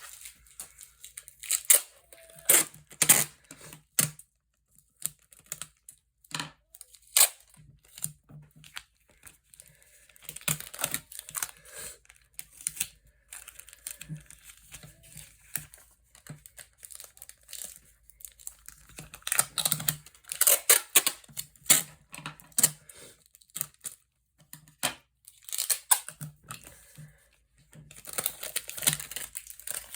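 Sheet of paper being handled, crinkling and tearing in irregular bursts, with sharp clicks between them.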